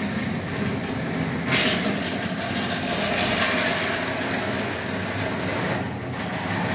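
Model steam tram locomotive running along the layout track with its wagons: a steady motor hum with a high whine over the rumble of wheels on rail. The run is not smooth, which the operator puts down to the loco being run rarely and to rails that need cleaning.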